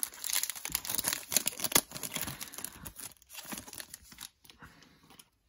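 A Panini Prizm foil card pack crinkling and tearing as it is ripped open by hand, with many sharp crackles. The crackling thins out and fades after about three seconds.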